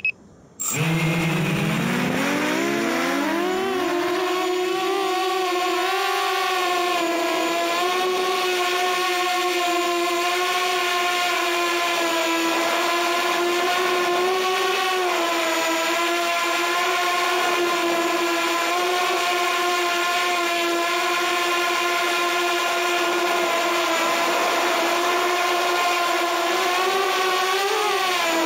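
Walkera F210 3D racing quadcopter's brushless motors and propellers spinning up about half a second in, the whine rising in pitch over a few seconds, then holding a steady, slightly wavering whine as the quad flies. Heard from on board, right beside a motor.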